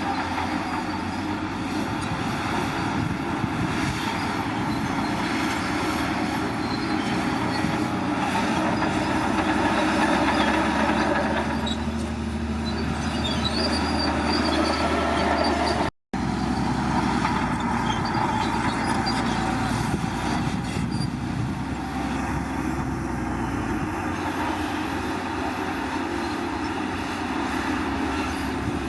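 Heavy diesel earthmoving machinery at work: an engine running steadily under load with metallic squealing and clatter. The sound breaks off for an instant about halfway through, then carries on the same.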